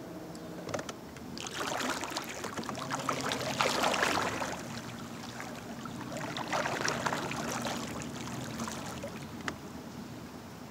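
Electric trolling motor on a kayak running with a low steady hum while the boat turns, with water splashing and trickling in two spells, the louder one about four seconds in and a shorter one around seven seconds.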